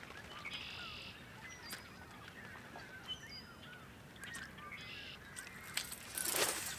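Distant flock of waterfowl calling, many short overlapping calls, with a few higher whistles and trills from other birds. A brief rushing noise comes near the end.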